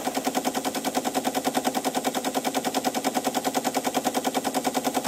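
Teletype ASR-33 paper-tape reader clattering steadily as it reads a punched tape back into the computer, at about ten characters a second.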